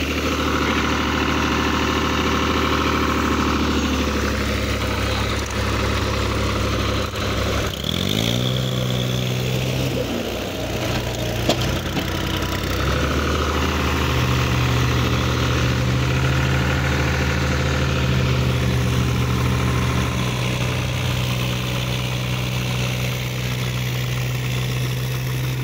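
Diesel engine of a New Holland TT 55 tractor running while it is stuck in mud. About eight seconds in it revs up, pitch rising, then holds a higher steady note.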